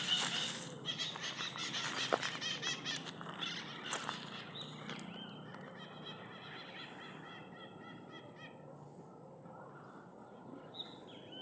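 A series of nasal, honking animal calls that fade away over several seconds, after rustling in the foliage at the start.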